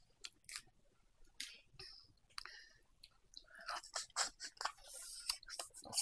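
A person eating curry-cooked crab legs: irregular small cracks and clicks of the shell, with chewing and sucking, busier in the second half.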